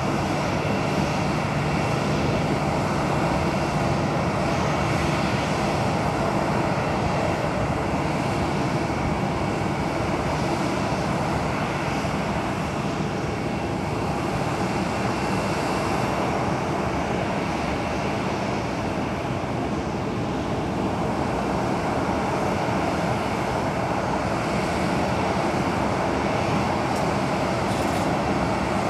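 Steady jet whine and rumble from a parked WestJet Boeing 737-800, level and unchanging.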